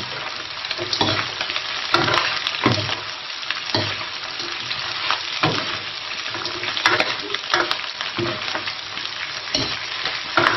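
Duck pieces, ginger slices and scallion sections sizzling in hot rapeseed oil in a wok, stir-fried with a metal ladle that scrapes and knocks against the wok about once a second. The stir-frying is to bring out the aroma of the ginger and scallion.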